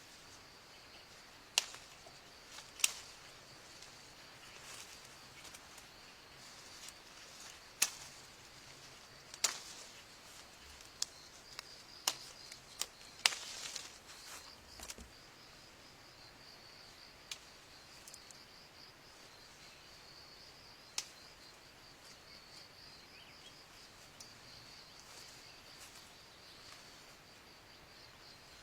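Steady high-pitched drone of an insect chorus, with irregular sharp clicks or snaps scattered over it, most of them in the first fifteen seconds.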